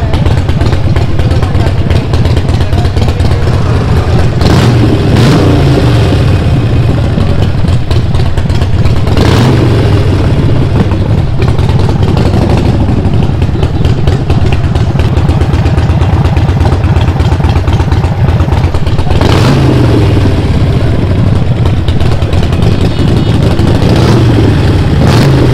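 Harley-Davidson Forty-Eight's air-cooled V-twin running on a free-flow exhaust, a steady low lumpy idle. The throttle is blipped briefly a few times, about 4–5 s in, around 9 s, around 19 s and near the end.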